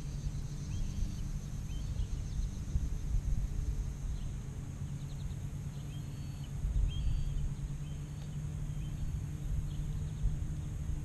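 Wind rumbling on the microphone, with small birds chirping in short repeated notes and a steady high buzz behind them.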